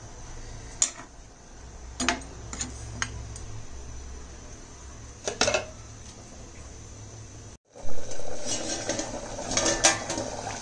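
Steel ladle clinking a few times against a steel pan of simmering pork curry, over a steady low hum. After a brief break, louder metal clattering as a steel lid is set on the pan with a pan gripper to cover it for further boiling.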